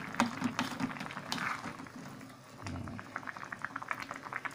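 Noodle broth boiling in an aluminium wok, a dense rapid bubbling that grows busier in the second half. A few light spatula knocks against the wok in the first second and a half.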